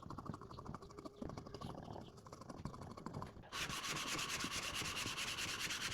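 Wood being sanded: fast, rhythmic scratching that turns into a louder, hissing sanding sound about halfway through.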